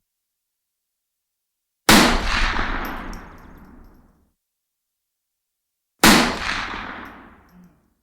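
Two rifle shots about four seconds apart, each a sharp crack followed by a long echo that dies away over about two seconds.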